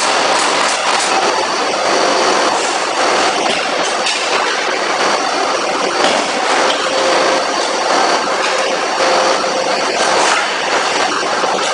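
Forge-shop machinery running: a loud, steady mechanical din with faint irregular clanks, and no single heavy hammer blow standing out.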